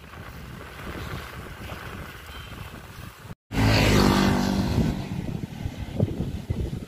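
Wind rushing over a camera microphone on a moving bicycle. About three and a half seconds in, the sound cuts off abruptly and comes back louder, with a low droning hum that falls slightly in pitch.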